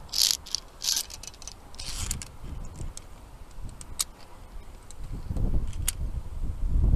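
Via ferrata lanyard carabiners scraping and clicking against the steel safety cable, with a few short scrapes in the first second and sharp metallic clicks about four and six seconds in. A low rumble builds near the end.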